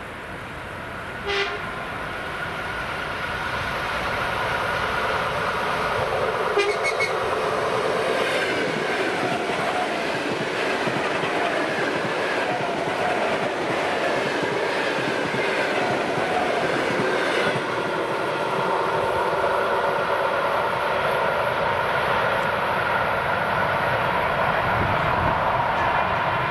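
ED4M electric multiple unit sounds two short horn blasts, about a second in and about six and a half seconds in, then passes close by. Its wheels clatter over the rail joints as the train of cars rumbles past.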